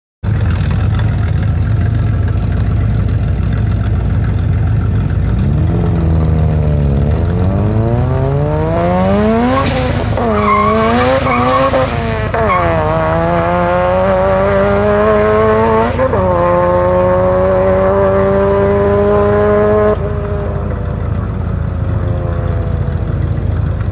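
Car engine running low, then accelerating hard from a standing start: revs climb and fall back through several gear shifts, with brief tire squeal around the early shifts. After a long pull in a higher gear, the throttle closes near the end.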